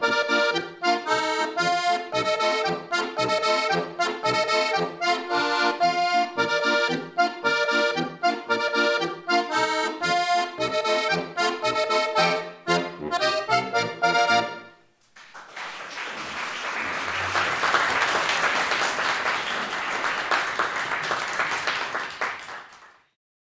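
Suchnig diatonic button accordion (Steirische harmonika) playing the last bars of a lively tune with guitar accompaniment, ending about 15 seconds in. Applause follows for about eight seconds and cuts off suddenly near the end.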